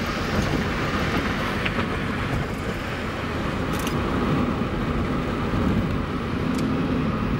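Road noise inside a moving car: a steady rumble of tyres and engine at driving speed.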